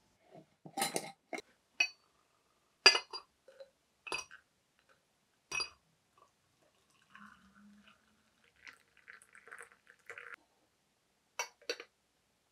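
Clinks and knocks of kitchenware being handled, then a thin stream of water poured from an electric kettle into a glass teapot, and near the end two light glass clinks as the teapot's glass lid is set on.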